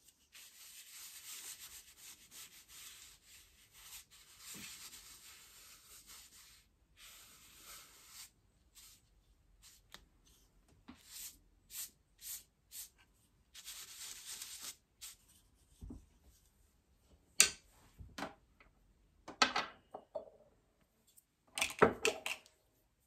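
Paintbrush rubbing over sketchbook paper in circular strokes, a scratchy swishing. It runs without a break for the first several seconds, then comes in shorter strokes with gaps. A few louder, sharper scrapes or taps come in the last few seconds.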